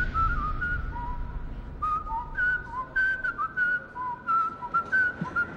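A person whistling a wandering tune in short notes that hop up and down, some with a little waver.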